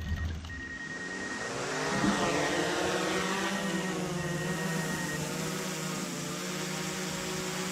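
Velomobile rolling along: a whirring drone of tyres and drivetrain, its pitch sweeping up and down as the speed changes.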